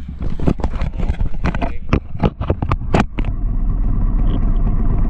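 Small motorcycle's engine idling with a steady low rumble. A quick run of sharp clicks and knocks sounds over the first three seconds, then stops.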